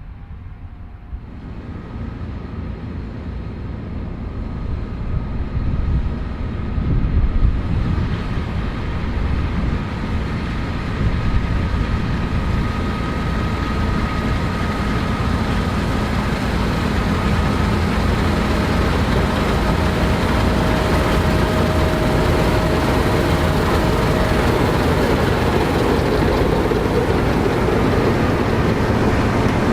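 New Holland combine harvester running while it harvests barley. It grows louder over the first ten seconds or so, then runs steadily with a faint whine above the machinery noise.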